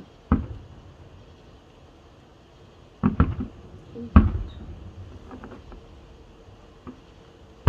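Aerial firework shells bursting at a distance: a boom shortly in, two in quick succession about three seconds in, and the loudest just after four seconds, each trailing off in a low echo, with a few fainter pops after.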